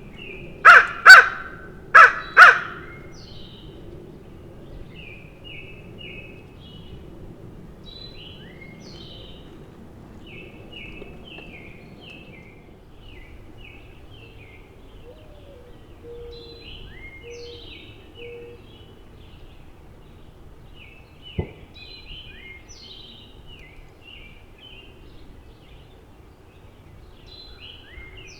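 Crow cawing four times in two quick pairs near the start, loud against a background of small songbirds chirping in short repeated phrases. A single sharp click about twenty seconds in.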